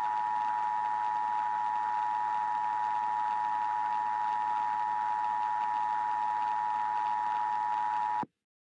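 Emergency Alert System attention signal: a steady two-note alarm tone held for about eight seconds over a hiss, cutting off abruptly shortly before the end. It signals that an emergency alert message is about to be read.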